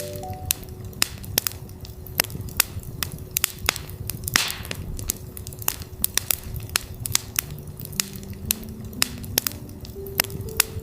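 Campfire crackling with frequent sharp pops and a brief hissing flare about four seconds in. Under it a steady 369 Hz tone is held, and soft pitched notes step upward near the end.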